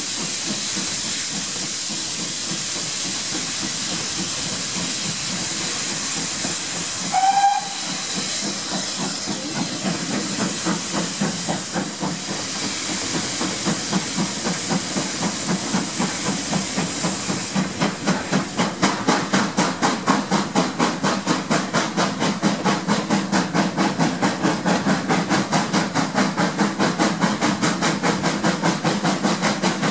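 GWR Hall class two-cylinder 4-6-0 steam locomotive under way: a steady hiss of steam, broken by a short whistle toot about seven seconds in. From about eighteen seconds the exhaust beats come through as a fast, even chuffing.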